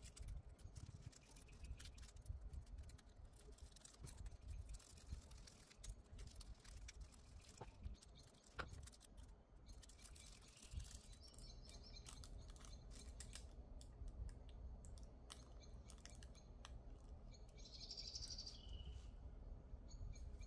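Faint rustling and small clicks of nitrile-gloved fingers handling and rubbing transfer foil onto a false nail tip, with a bird's short chirp near the end.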